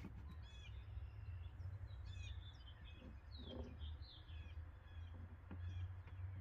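Songbirds chirping and singing faintly, several short calls overlapping, over a steady low rumble.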